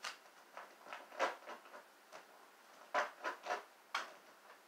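A kitten's claws scratching and scrabbling at fabric couch upholstery: a string of short, irregular scratches, bunched around a second in and again from about three to four seconds in.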